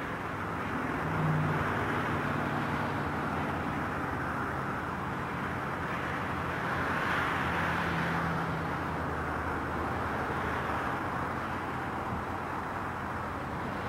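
Southern Pacific freight train rolling away on branch-line track: a steady rumble of wheels on rail with a low hum under it, swelling a little about halfway through.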